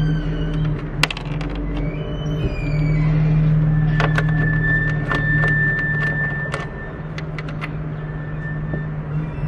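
Hand ratchet wrench clicking in short runs on the spoiler's 10 mm nuts inside a car's rear hatch, about three clicks a second from about four seconds in. A steady low hum runs underneath.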